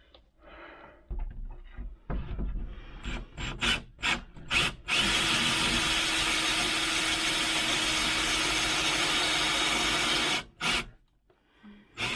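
Power drill driving a hole saw through a solid pine door to bore the doorknob hole, finishing the cut from the first side so the wood doesn't splinter out. After a few short starts and knocks, the drill runs steadily under load for about five seconds with a constant whine, stops, and starts again near the end.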